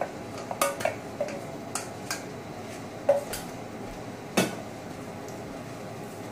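Metal saucepan and ladle clinking against each other and the serving dish as sauce is spooned over food: a string of light metallic taps, several with a short ring, the two loudest about three and four and a half seconds in.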